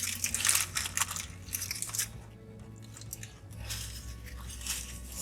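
Close-up chewing and crunching of food, a fast run of crisp crackles for about two seconds, a short lull, then more chewing near the end.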